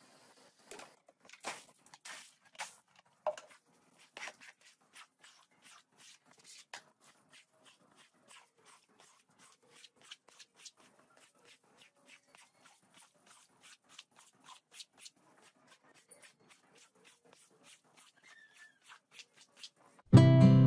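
Long-handled scrub brush stroking across a wet rug on concrete: a run of short bristle swishes, a few a second, louder in the first few seconds. Near the end, strummed acoustic guitar music starts abruptly and is the loudest sound.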